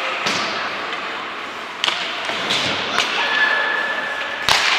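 Ice hockey play in a rink: four sharp knocks of sticks and puck against the ice and boards, the loudest near the end, over a steady rink hubbub. A steady high tone sounds for about a second past the middle.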